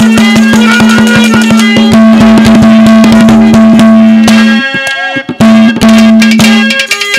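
Live Haryanvi ragni folk music in an instrumental passage: fast drumming under one held melody note. The music breaks off for about a second roughly two-thirds of the way through, then resumes.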